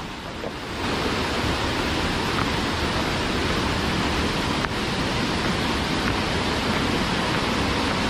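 Steady rush of fast-flowing river water over rocks below a waterfall, louder from about a second in, with a faint single click near the middle.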